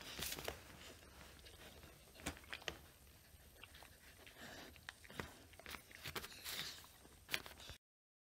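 A mother dog licking and nibbling at her newborn puppy: soft, irregular wet chewing and smacking clicks.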